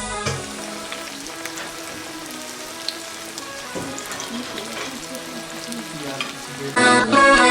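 Fish frying in hot oil: a steady sizzle with scattered small pops. Loud background music cuts back in near the end.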